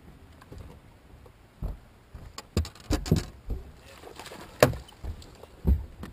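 Irregular thumps and knocks on a bass boat's deck, with the sharpest knock about two-thirds of the way through: an angler's footsteps and fishing gear being handled on board.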